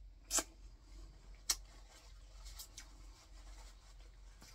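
Close-miked mouth sounds of eating boiled crawfish: a few sharp wet smacks and clicks while chewing. The two loudest come about a third of a second in and about a second and a half in, with fainter ones after.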